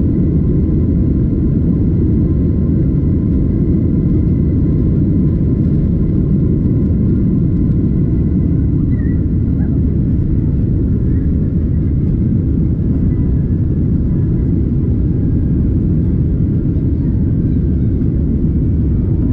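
Boeing 767-300ER's jet engines at takeoff thrust, heard inside the cabin over the wing: a steady deep roar through the takeoff roll, liftoff and initial climb, with a faint steady high whine.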